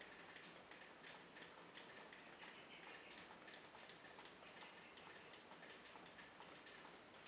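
Faint light rain: raindrops ticking irregularly, several a second, over a soft hiss.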